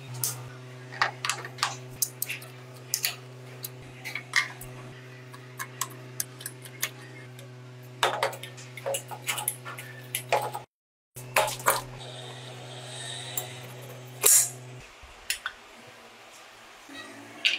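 Vespa scooter engine parts handled and fitted by hand: irregular light metal clinks and taps as the clutch plates are set in place and the cylinder is slid over the piston onto its studs. A steady low electrical hum runs underneath and stops near the end.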